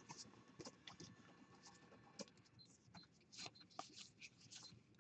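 Faint rustling and soft flicks of a stack of cardboard baseball trading cards being thumbed through by hand, one card slid past another.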